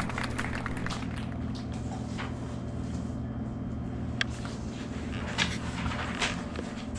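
A steady low hum of room background, with a few light clicks and handling noises from small items on a desk, the loudest about four, five and a half and six seconds in.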